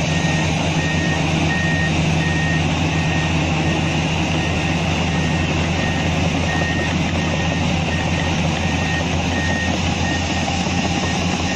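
Heavy earthmoving machine's diesel engine running steadily while its reversing alarm beeps over it in an even, repeating rhythm.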